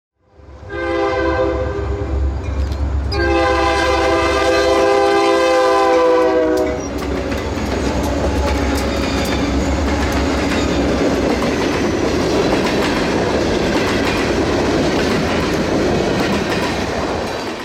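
Freight train passing: a diesel locomotive's air horn sounds two long blasts, the second longer. The locomotive rumble and the steady clatter of rail cars follow as the train goes by.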